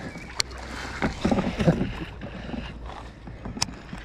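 Water splashing and sloshing around a raft on a river. It is loudest a little over a second in. Two sharp clicks come, one about half a second in and one near the end.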